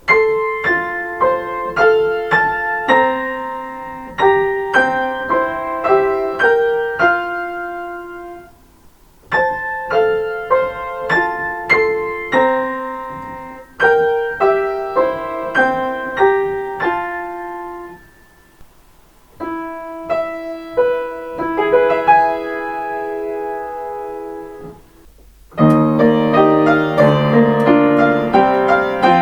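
Solo piano playing Japanese private-railway on-board chime melodies. A short melody is played twice, then a different slower phrase, then a fuller passage in chords begins near the end.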